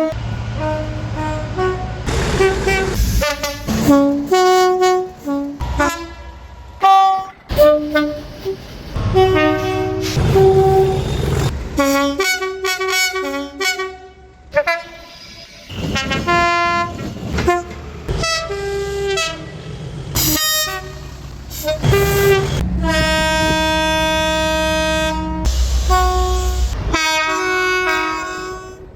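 Locomotive air horns in a string of short clips cut one after another: multi-note chords sounding short and long blasts, each clip ending abruptly. One longer held chord comes about two-thirds of the way through, and a run of quick short toots near the end.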